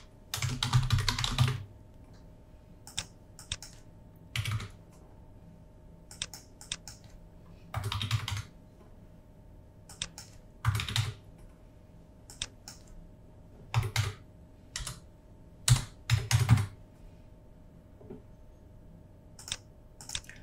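Typing on a computer keyboard in short bursts of key presses with pauses between them, as values and a name are entered into form fields.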